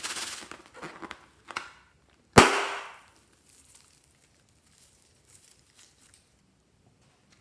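A single sharp pop about two and a half seconds in, most likely a rubber balloon bursting. Before it come a second or so of rustling and scraping from handling.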